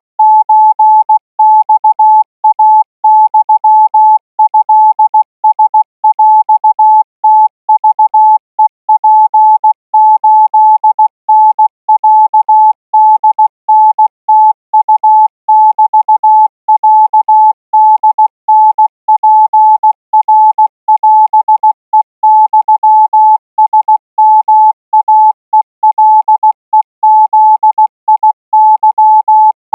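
Thai Morse code practice signal sent at 20 words per minute: a single mid-pitched beep keyed on and off in an unbroken run of dots and dashes.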